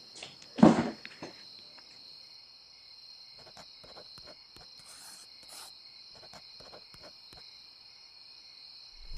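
Steady high-pitched chirring of crickets, with one short loud thud about half a second in. Scattered light clicks of chopsticks against a porcelain rice bowl follow.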